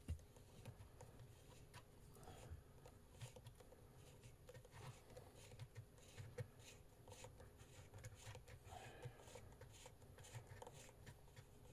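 Near silence with faint, scattered ticks and scratches of a precision Phillips screwdriver slowly turning a small screw into a plastic key fob.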